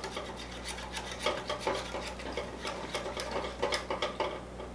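Small stainless steel whisk stirring sauce in a stainless steel saucepan, scraping and clicking against the pan's sides and bottom in an irregular rhythm of about two or three strokes a second, as a cornstarch sauce is kept moving on the heat until it thickens.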